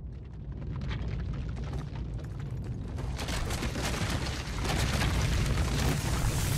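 Film sound design of crystalline rock: a deep, continuous rumble under dense cracking and crackling, growing louder about a second in and again near the end.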